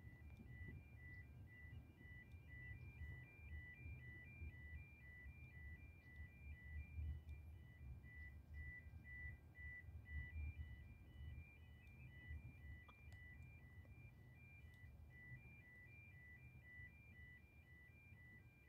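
Faint level crossing warning alarm: an electronic two-tone signal pulsing about twice a second, over a low rumble.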